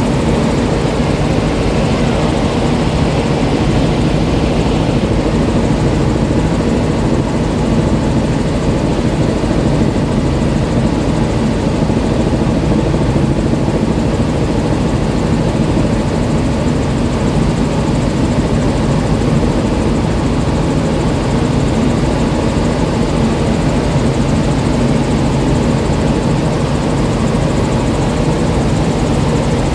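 Helicopter in flight: a loud, steady drone of engine and rotor that holds unchanged throughout.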